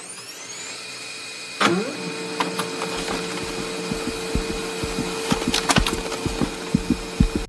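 Intro music and sound effects: a rising sweep, a hit about a second and a half in, then a held drone over low, beat-like thumps.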